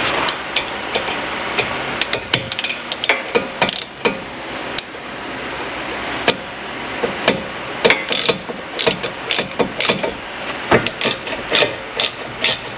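Hand ratchet wrench clicking in short runs as bolts on a front brake caliper are turned; the clicks come scattered at first and in quicker, denser runs in the second half.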